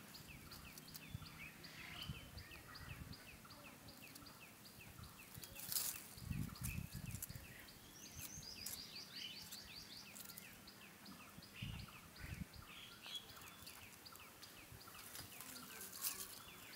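Faint outdoor background with a bird giving a rapid run of short, high chirps. There is a single sharp knock and a brief low rumble about six seconds in.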